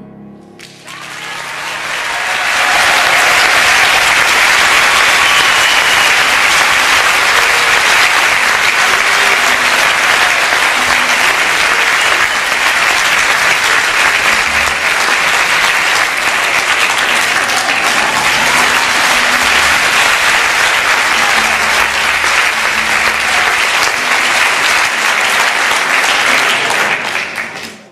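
Audience applauding: the clapping swells over the first two seconds, holds loud and steady, and cuts off abruptly near the end.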